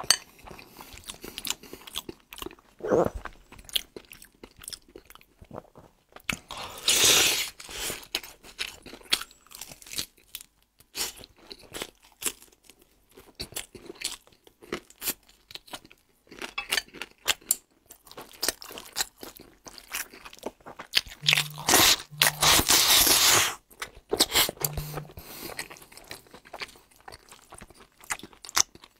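A person eating close to the microphone: crunching bites and chewing in irregular bursts, with a few louder crunches about a quarter of the way in and again past two-thirds of the way. The food is crisp fried chicken and a stir-fried dish eaten from a bowl.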